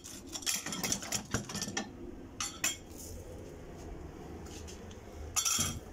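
Light metallic clinks and clatter of small metal parts being handled: a quick run of clicks through the first two seconds, a quieter stretch, then another clatter near the end.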